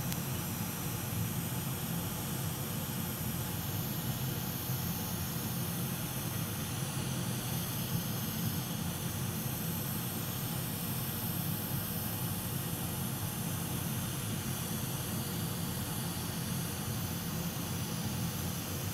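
Hot air rework station blowing at maximum heat and airflow onto a large Wi-Fi module to melt its solder: a steady rushing hiss with a low hum underneath.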